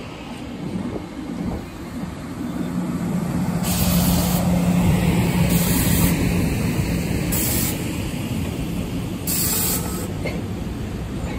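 NJ Transit passenger coaches rolling past close by: a steady rumble of wheels on rail with a low hum, swelling toward the middle. Four short bursts of hiss come about every two seconds.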